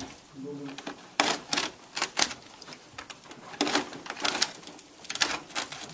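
Clusters of sharp cracks and snaps as model railroad layout scenery and its wiring are broken and pulled apart by hand, four bursts of quick crackling.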